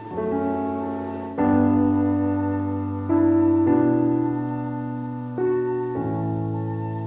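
Background piano music: slow, sustained chords, each struck and left to fade before the next, a new one every one to two seconds.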